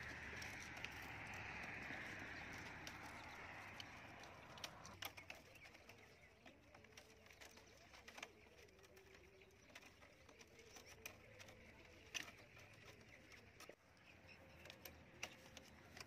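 Very quiet: scattered light clicks of thin bamboo sticks being handled and woven, with a bird calling faintly in the background.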